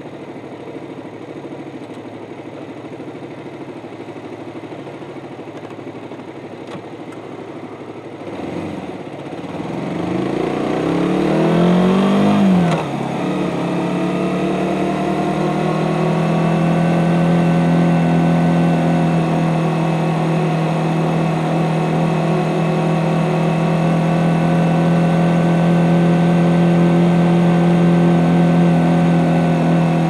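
Suzuki GSX-S150's single-cylinder engine through its stock exhaust, running at a low steady note, then revving up hard from about 8 seconds in. There is a sudden drop in pitch like an upshift about halfway through, after which it holds a steady, louder note at cruising speed.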